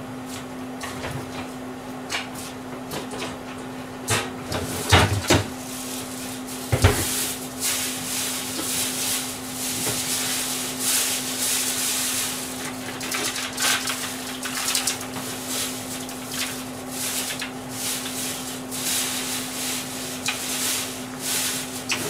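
Kitchen handling noises: a few sharp knocks and clunks about four to seven seconds in, then uneven rustling and clattering, over a steady low hum.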